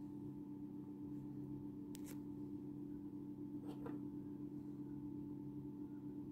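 A steady low hum made of several tones, with a faint click about two seconds in and a couple of light taps near four seconds as a hand picks up an effervescent vitamin C tablet.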